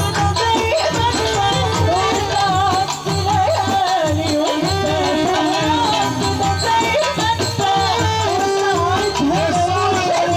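Loud live Middle Eastern folk music: a wavering, ornamented melody over a steady low drum beat.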